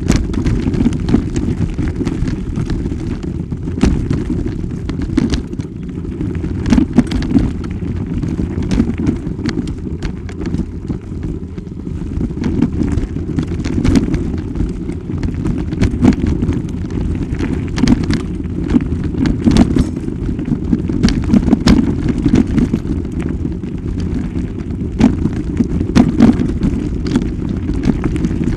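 Wind buffeting the microphone as a constant low rumble, broken by frequent sharp knocks and rattles from the camera jolting along a rough dirt trail at speed.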